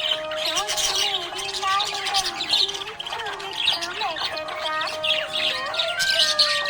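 Budgerigars chirping and chattering in a busy, continuous flurry of short high chirps, with a song playing underneath: a sung melody of long held, gliding notes.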